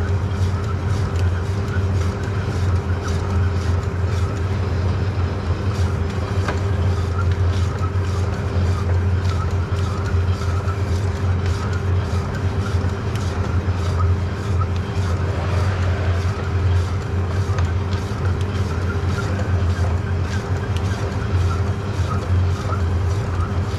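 Electric deli meat slicer running with a steady motor hum while slicing cold-cut sausage.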